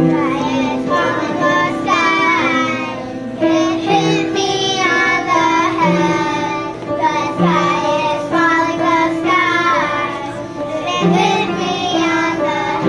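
Children singing a song with piano accompaniment.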